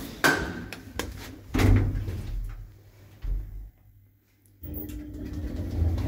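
Passenger lift doors and mechanism clunking: four sharp knocks in the first three and a half seconds, then a steady hum with a low tone sets in near the end.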